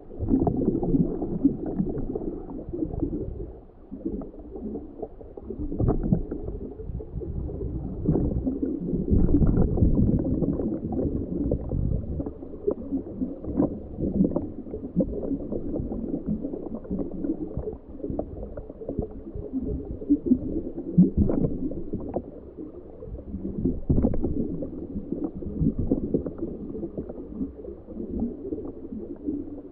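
Muffled, uneven underwater gurgling and rumbling around a homebuilt ROV moving over the seabed, with scattered short knocks.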